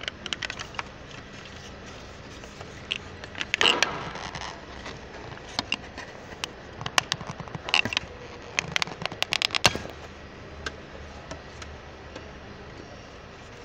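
Plastic dashboard trim of a Land Rover being pried and handled: irregular clusters of sharp clicks and knocks, with a short scrape about four seconds in and the sharpest clicks between about seven and ten seconds in.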